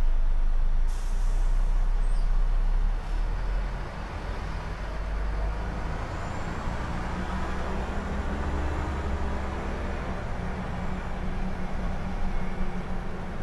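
Scania L94IB bus heard from inside the cabin while driving, its diesel engine and road noise running steadily, with a brief hiss of air about a second in. From about six seconds in the engine note climbs as the bus gathers speed.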